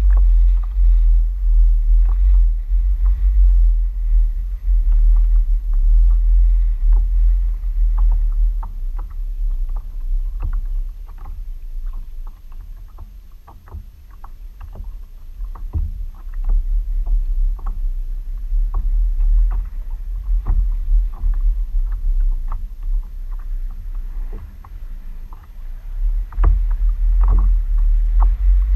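Water lapping and slapping against a plastic kayak hull in many small, quick splashes, over a loud, uneven low rumble of wind buffeting the camera's microphone.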